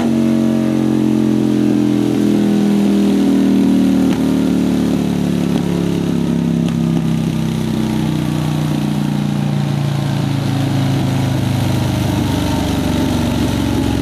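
Drag motorcycle engine running hard on a chassis dyno with its rear slick spinning on the roller: held at high revs for the first few seconds, then the engine speed falls away slowly over about eight seconds and settles lower near the end.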